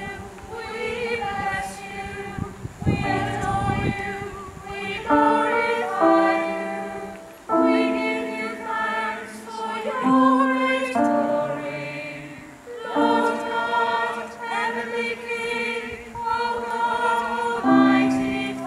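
A small church choir singing in parts, holding long notes, with the chord changing every second or two.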